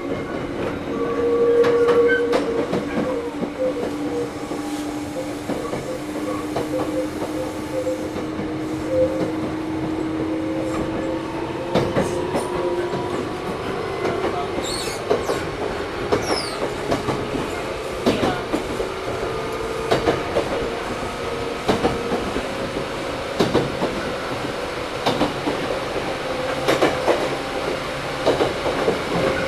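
Toyohashi Railway 1800 series motor car (Mo 1854, a former Tokyu 7200 series with resistance control) heard from inside while running: the traction motors whine, rising in pitch as the train gathers speed over the first dozen seconds, then holding steady. From about midway the wheels clack over rail joints every second or two.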